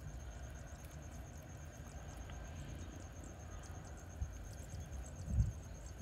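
Wind in a rice paddy, heard mainly as a low rumble on the microphone, with a stronger gust about five seconds in. A steady high-pitched insect trill pulses in the background.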